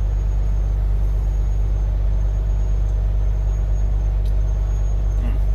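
Truck diesel engine idling with a steady low rumble.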